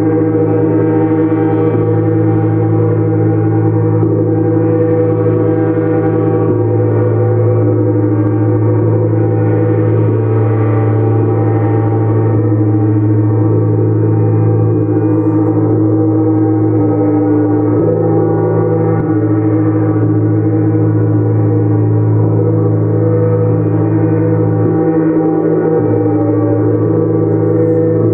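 Gong being played continuously: a dense, steady wash of many sustained ringing tones, with no break.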